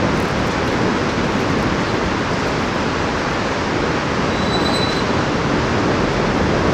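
Steady rushing noise of a fast whitewater river far below in the gorge.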